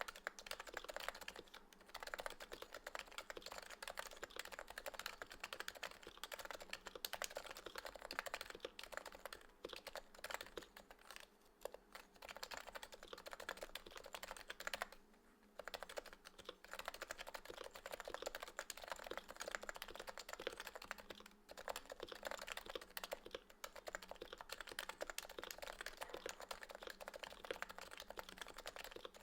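Realforce R2 PFU keyboard with Topre electrostatic capacitive switches on light 30 gf Metakeebs rubber domes, typed on quickly and continuously, with brief pauses about two seconds in and about halfway through.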